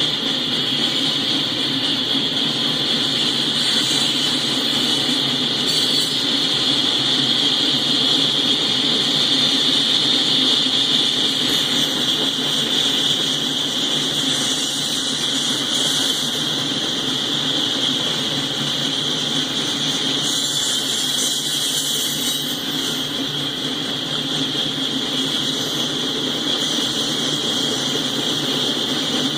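Loaded coal train rolling past: a steady rumble of wheels on rail under a constant high hiss, with no horn or other sudden event.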